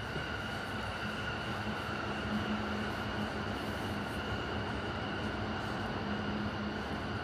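Electric train running on nearby tracks: a steady hum and a higher whine over a continuous rumble.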